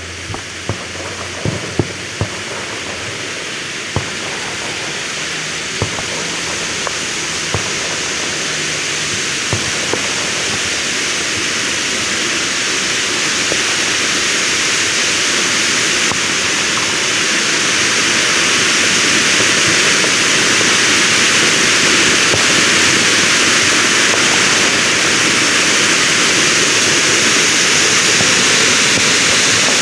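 Three linked BUGANO Everest ground fountains burning together: a steady rushing hiss of spraying silver sparks that grows gradually louder. Scattered sharp pops sound over the first ten seconds or so.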